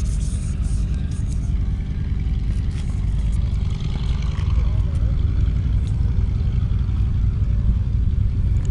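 Old propeller warplane's piston engines heard as a steady low rumble from the runway, growing slightly louder near the end. A few handling clicks come near the start.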